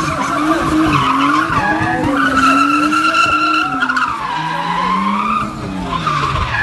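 A white Nissan Skyline drifting in circles, its tyres squealing without a break and its engine held high in the revs. The engine note sags a little over halfway through and climbs again near the end.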